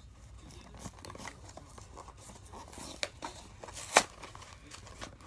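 Small cardboard box being handled and opened by hand: soft rustling and scraping with a few light clicks, and one sharp snap about four seconds in as the flap is pulled open.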